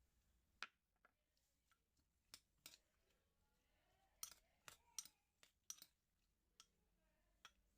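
Irregular sharp clicks and taps of kitchen work, about a dozen scattered over several seconds and bunched together a little past the middle, over a quiet background.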